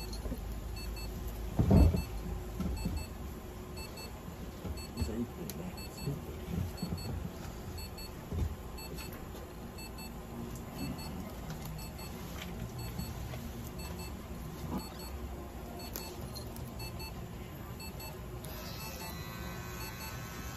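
Faint electronic double beep from medical equipment, repeating about once a second and stopping near the end. A low thump about two seconds in.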